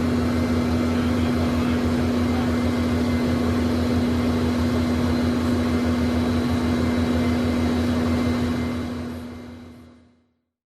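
Learjet's jet engines idling, heard from inside the cabin: a steady rush with a strong constant hum. It fades out over the last two seconds.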